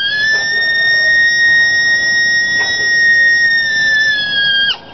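A cow horn coyote howler, the NCK Special, blown in one long, high-pitched howl: the note is held steady, sags slightly, and breaks off shortly before the end.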